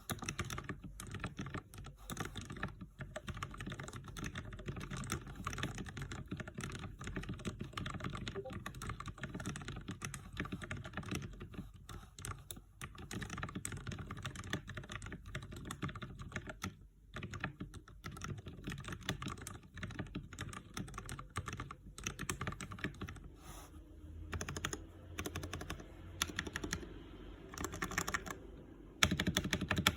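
Typing on a Keychron K6 mechanical keyboard with lubed Gateron Brown tactile switches: a fast, continuous run of keystrokes, with a brief pause about 17 seconds in and a louder flurry near the end.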